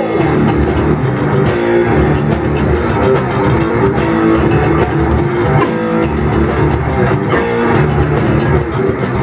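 A rock band playing live in a rehearsal room: electric guitars, bass and a drum kit playing a loud, driving passage.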